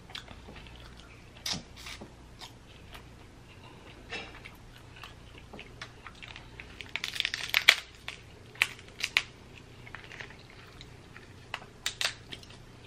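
Cooked Dungeness crab shell being cracked and the meat pulled apart by hand, with chewing, picked up close to the microphone. Scattered sharp cracks and clicks, with a thick run of crackling about seven seconds in and a few more cracks near the end.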